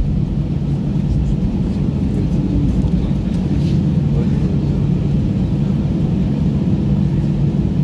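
Cabin noise of an Airbus A320 taxiing on its idling jet engines: a steady low rumble with a faint hum.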